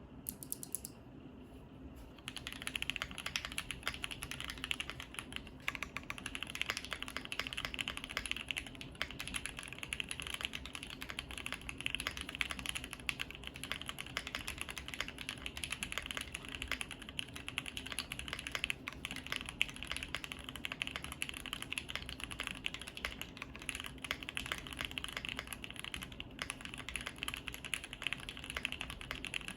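Typing on a Bakeneko60 mechanical keyboard with lubed SP-Star Meteor White linear switches on 63 g springs, an FR4 plate and GMK keycaps. A few stray keystrokes come first, then continuous fast typing from about two seconds in: a dense stream of keystrokes.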